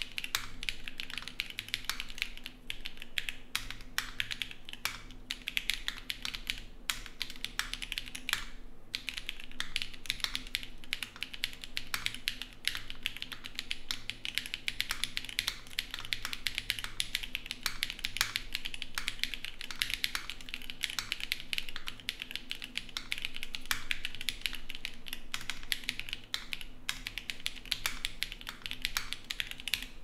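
Fast, continuous two-handed typing on a KBD75V2 custom mechanical keyboard with a stacked-acrylic gasket-mount case, acrylic plate with plate foam, KTT White switches, tuned and lubed Durock V2 stabilizers and PBT keycaps: a dense stream of key clacks with a brief pause about nine seconds in.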